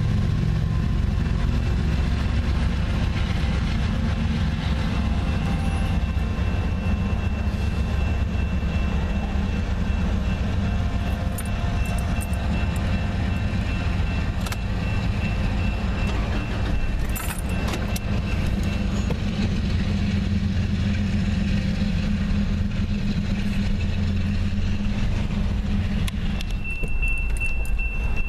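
Steady low rumble of an idling vehicle heard from inside its cab, with a railroad crossing bell ringing steadily at a high pitch.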